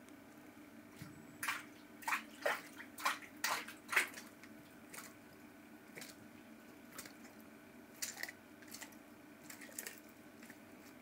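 Cuvier's dwarf caiman biting and shaking its prey. A quick run of short, sharp noises comes from about one and a half to four seconds in, then fainter ones follow at intervals.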